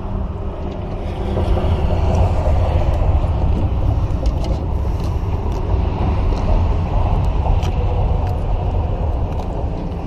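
Steady rumble of road traffic crossing a nearby bridge, heaviest in the low end and swelling slightly about a second and a half in.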